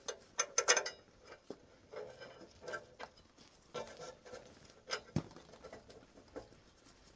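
Scattered clicks, taps and rustles of hand work under the car as the muffler's exhaust bolts are put back in, with a quick cluster of louder knocks just under a second in and single taps every second or so after.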